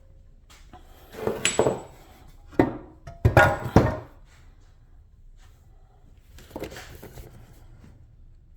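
Metal tools clattering and knocking as they are handled: a run of sharp knocks and clanks about one to four seconds in, then a softer rattle later on.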